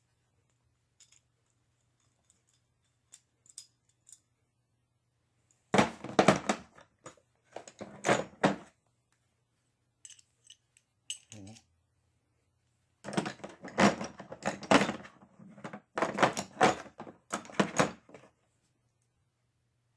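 Small metal hand tools clinking and rattling as they are handled, in two spells of clatter with quiet between.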